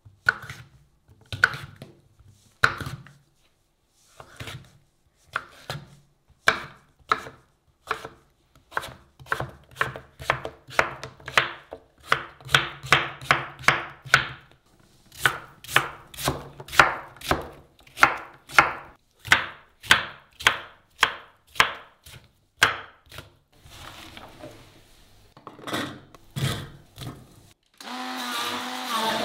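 Knife slicing fruit on a plastic cutting board: a long run of cuts, each ending in a knock of the blade on the board, up to about two a second at the fastest. Near the end a handheld immersion blender starts and runs steadily.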